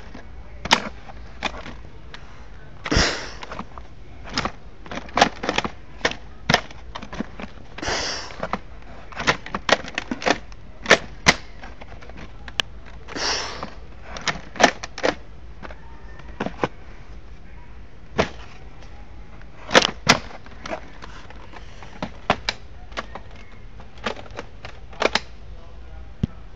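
Toy rifle being fired over and over: irregularly spaced sharp clicks and snaps, sometimes several a second, with three longer bursts of noise in the first half.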